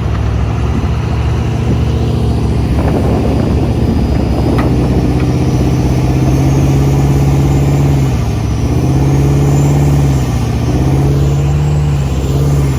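Heavy diesel engine running hard under load, its pitch dipping and climbing back twice near the end as the throttle is worked.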